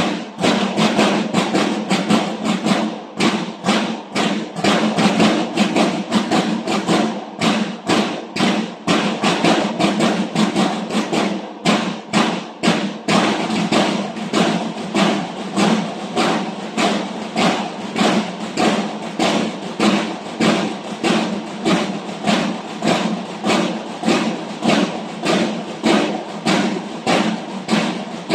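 Marching drums of a banda de guerra playing a steady drum cadence, about two strong beats a second.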